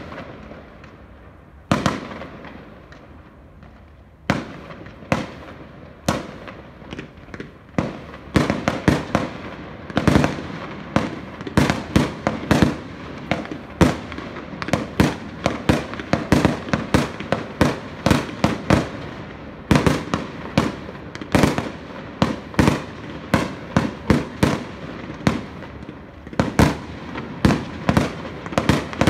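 Aerial firework shells bursting. A few single bangs come seconds apart at first, then from about eight seconds in a rapid, dense string of bangs follows, several a second.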